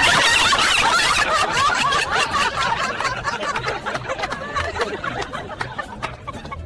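Several people laughing together right after a joke, starting at once and slowly dying away over about five seconds.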